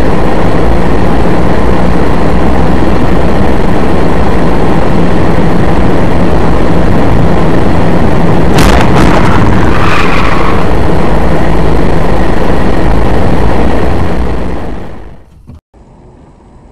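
Loud, steady engine and road noise picked up inside the car by a dashcam's microphone, with a sudden bang about eight and a half seconds in and a brief ringing after it. The noise fades out about two seconds before the end.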